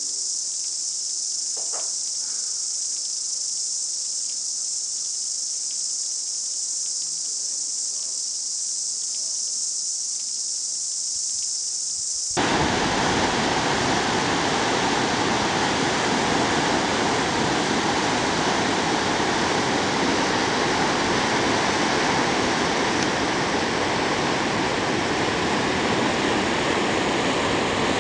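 Dense, steady high chorus of cicadas, with faint singing voices in the first couple of seconds. About twelve seconds in it cuts abruptly to the louder, steady rush of Huka Falls, the Waikato River pouring through its narrow rock chute.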